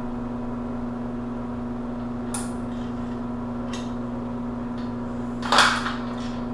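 Metal hand tools and steel rivet-jig parts clicking and clinking a few times, with one louder clatter near the end, over a steady background hum.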